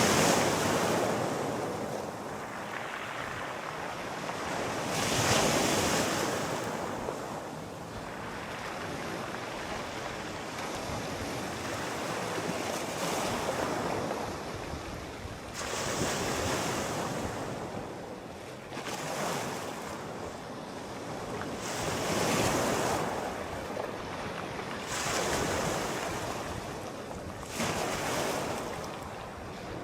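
Sea waves breaking and washing up the shore, a surge every few seconds rising and falling back into a steady wash.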